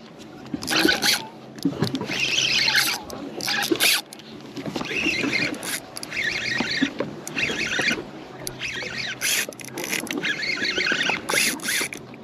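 Water slapping and sloshing against a boat's hull in irregular bursts, over a low steady hum.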